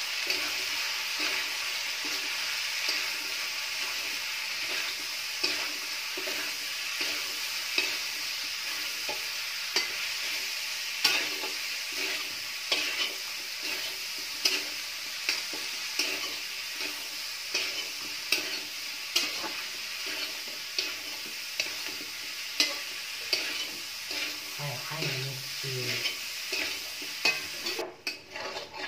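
Sliced onions, garlic and whole spices sizzling in hot oil in a kadai on a high flame, with a spatula scraping and knocking against the pan every second or so as they are stirred. The sizzle drops away near the end.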